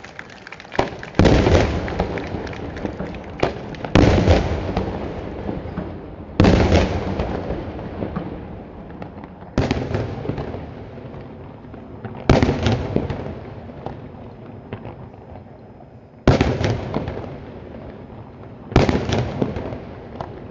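Daytime fireworks shells bursting over the bay: seven loud bangs a few seconds apart, each followed by a long rolling echo that fades slowly, with a few smaller pops between them.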